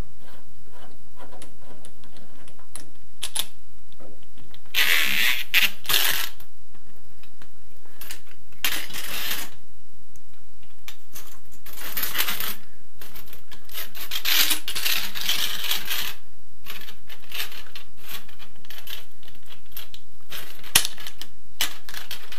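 Small metal plumbing fittings and washers clinking and rattling as they are handled, with several bursts of rustling noise a few seconds apart.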